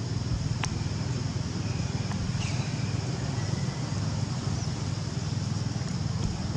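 Steady low outdoor background rumble with an even high hiss above it, and a single sharp click about half a second in.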